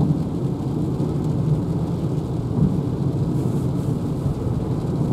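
Steady low rumble of road and tyre noise inside the cabin of a moving Renault ZOE electric car.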